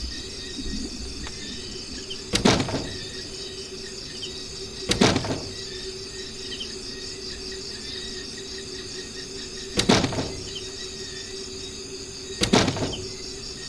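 A steady chorus of crickets or other insects with a low steady hum under it. Four short, sharp knock- or squeal-like sounds break in, a few seconds apart.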